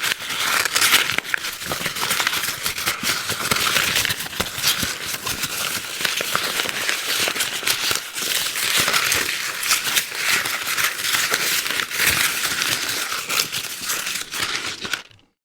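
Paper being crumpled and handled: continuous dense crinkling and crackling that stops suddenly near the end.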